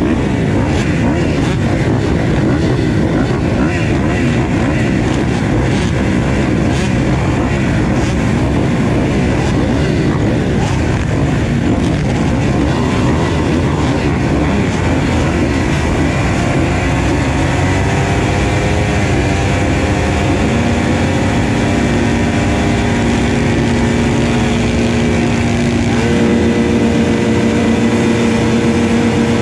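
A line of motocross bikes running at the start gate, the nearest a Kawasaki: engines idling and being blipped at first, then from about two-thirds in held at steady high revs ready for the gate to drop, with one engine stepping up higher near the end.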